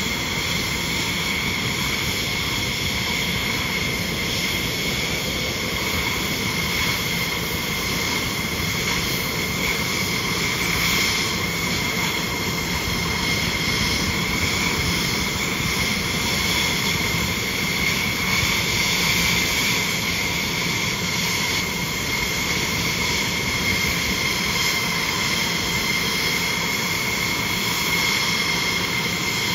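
Jet engines running steadily, a constant high whine over a rushing roar with no change in pitch or level.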